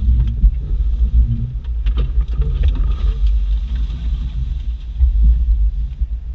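Off-road vehicle's engine and drivetrain rumbling, heard from inside the cab as it pushes through deep snow, with scattered knocks and scrapes of snow-laden branches striking the body and windshield.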